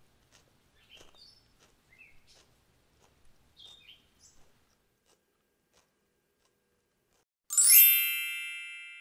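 A bright chime sound effect about seven and a half seconds in: a quick rising sweep, then several ringing tones that fade away over about two seconds. Before it there are only faint ticks and a few short high notes.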